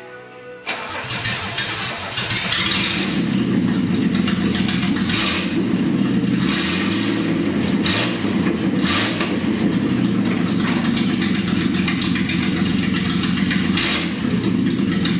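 Datsun 240Z's carbureted inline-six starting up and running, with the revs rising and falling a few times.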